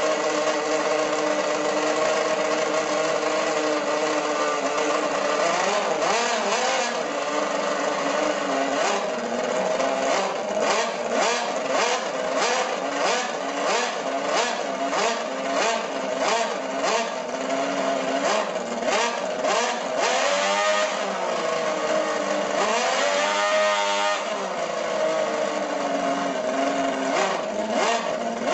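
Miniature working scale-model internal-combustion engine running, revved by hand at the throttle. It gives a run of quick throttle blips, about two a second, through the middle, and several longer rises and falls in pitch.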